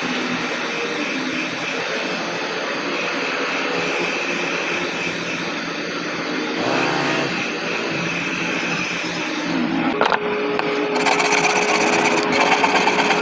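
Handheld electric heat gun blowing steadily while heating a car side mirror's glass and backing plate. About ten seconds in there is a click, then a steady hum, and the hiss grows louder.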